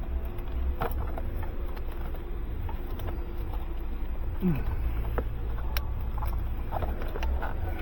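Handling noise of hands working plastic electrical connectors and wiring into place: scattered light clicks and rustles over a steady low rumble, with one short squeak falling in pitch about halfway through.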